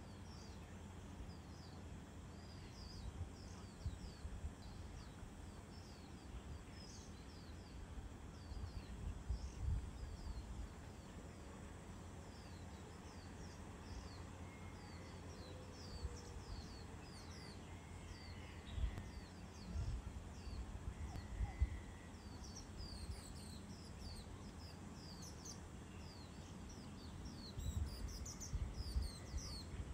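Small birds chirping repeatedly: many short, high, downward chirps in loose clusters. Now and then low gusts of wind rumble on the microphone, the loudest sounds here.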